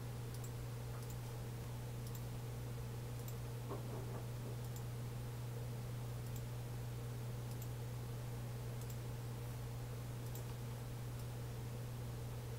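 Computer mouse clicking at irregular intervals, about once a second, faint and sharp, as edges are picked one after another in CAD software. Under it runs a steady low hum.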